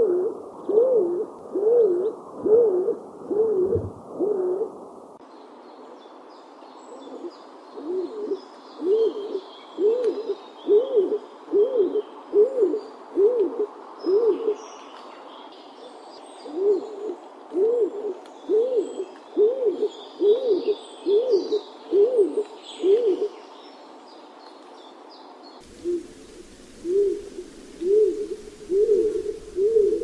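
Stock dove cooing: runs of low, evenly repeated notes, about one and a half a second, each rising and falling, with pauses of a couple of seconds between runs. Smaller birds chirp faintly in the background through the middle.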